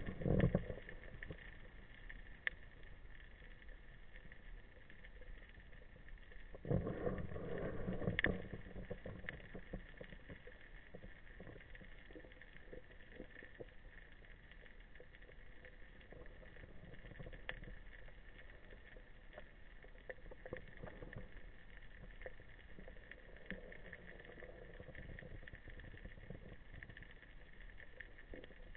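Faint, muffled underwater ambience picked up by a camera in a waterproof housing on a speargun: a steady hiss with scattered faint clicks. A louder low rumble comes for about a second and a half a quarter of the way in.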